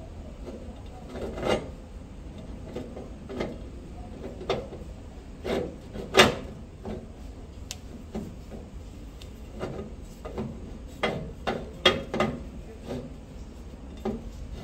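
Stainless-steel outer cover of a raw-juice mixer being fitted onto the grinding head by hand: irregular metal clinks and knocks with some scraping. The loudest knock comes about six seconds in, and there is a quick run of clinks near the end.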